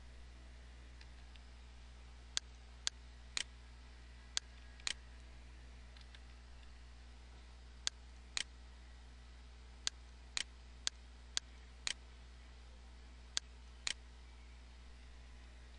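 Computer mouse clicking: about fourteen sharp, separate clicks at irregular times, often in pairs about half a second apart, over a faint steady low hum.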